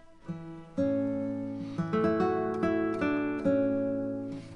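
Background music of a plucked acoustic guitar, picking out notes and chords that each ring and fade, coming in strongly about a second in.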